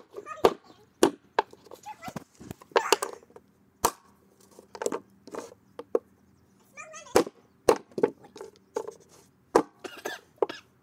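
A screwdriver being stabbed again and again into a removed LG G4 lithium-ion phone battery lying on a plywood board: sharp knocks of the steel tip on the cell and the wood, about a dozen at uneven intervals. The jabs are meant to pierce the cell and short it.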